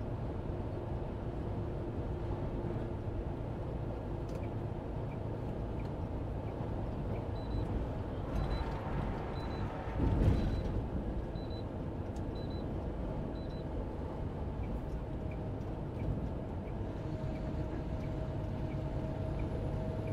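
Steady engine and road noise inside a semi-truck's cab cruising on the highway. Partway through comes a string of about eight short high beeps, and a brief louder bump about halfway through.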